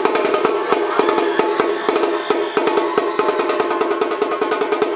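Repinique drum played in a fast, even rhythm of sharp strokes with a ringing head, stopping suddenly just before the end.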